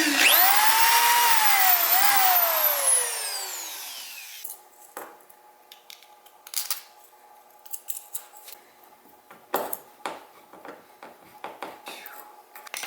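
Power drill boring the first hole through a kayak's plastic hull: the motor whines up quickly, runs under load with a brief dip in pitch about two seconds in, then winds down over the next two seconds as the trigger is let go. Faint clicks and handling noises follow.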